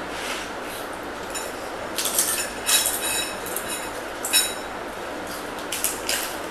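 Metal spoons clinking against ceramic bowls while eating noodles: several short, sharp ringing clinks starting about two seconds in, the loudest near three and four and a half seconds, over a steady background hiss.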